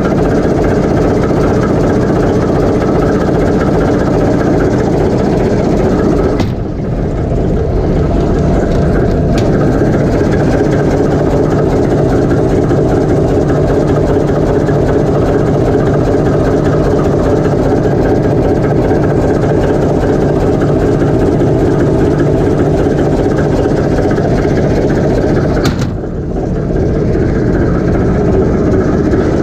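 TEM2UM locomotive's six-cylinder PD1M diesel engine running steadily, heard from inside the engine compartment. The sound drops briefly twice, about a quarter of the way in and near the end.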